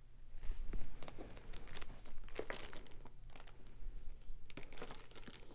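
Clear plastic storage envelopes holding scrapbook paper packs crinkling and rustling as they are handled and moved, in several short, irregular rustles with light clicks.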